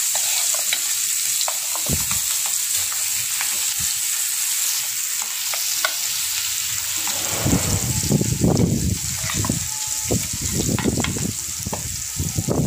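Masala-coated fish slices shallow-frying in hot oil on a flat iron tawa: a steady, high-pitched sizzle with a few small pops. From a little past halfway, an uneven low rumbling noise joins the sizzle.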